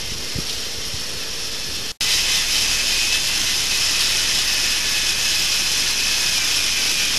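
K'NEX model roller coaster running, its motorised chain lift giving a steady whirring hiss. About two seconds in the sound cuts out for an instant and comes back louder.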